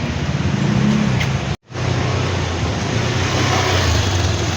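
Steady car noise with a low engine hum, which cuts out completely for a moment about a second and a half in.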